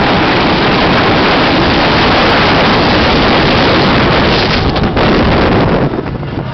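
Rushing wind on the microphone and the rumble of the Magnus Colossus wooden roller coaster train running along its track at speed. The noise drops sharply near the end as the train slows.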